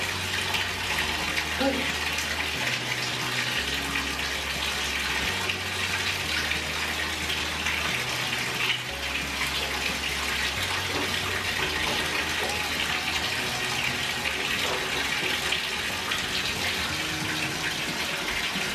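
Water running from a tap into a bathtub, a steady, even rush.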